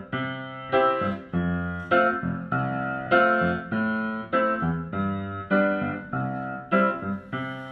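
Keyboard music: chords struck in a steady rhythm, a new chord about every half-second or so, each ringing on and fading slightly before the next.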